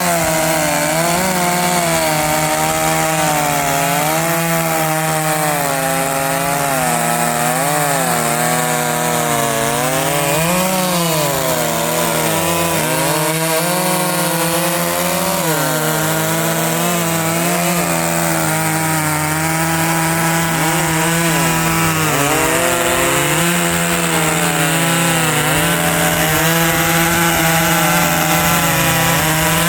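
Dolmar 7900 two-stroke chainsaw running at high revs under load, ripping lengthwise through a radiata pine log in freehand milling. Its pitch repeatedly sags and recovers as the chain bites harder and frees in the cut.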